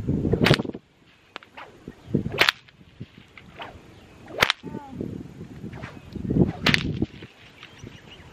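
A whip cracked four times from horseback, about every two seconds, each sharp crack coming at the end of a short swinging rush.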